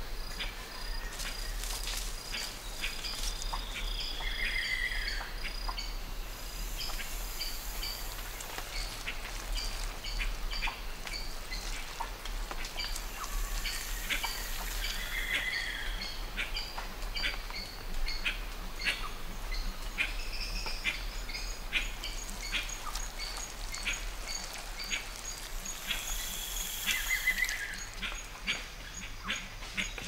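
Tropical rainforest ambience: insects buzzing steadily at a high pitch, with scattered bird chirps and calls. The same call comes back roughly every eleven seconds.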